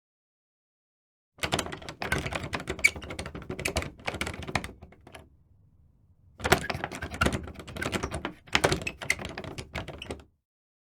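A door knob being rattled: quick, uneven metallic clicking and knocking of the knob and latch in two bursts of about four seconds each, with a short pause between.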